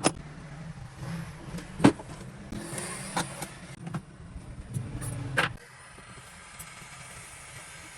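Several sharp metal clicks and knocks over a steady low hum; the hum cuts off suddenly a little past halfway, leaving a faint steady hiss.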